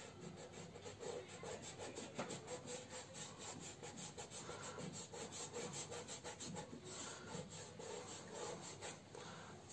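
Fingers rubbing over oil pastel on paper to blend it: faint, quick, repeated rubbing strokes.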